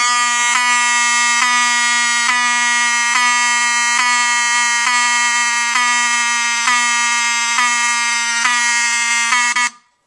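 Wheelock 7001T-24 fire alarm horn/strobe (Fire-Lite STH-71-24VDC) sounding its continuous buzzy horn on 24 V DC. The horn skips briefly about once a second, the typical skip of this model as its strobe fires. It cuts off just before the end.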